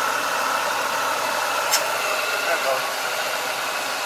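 Car engine idling steadily with a high whine from the belt-driven accessories; a little under two seconds in a single sharp click sounds, the newly fitted AC compressor's clutch engaging as the compressor kicks in.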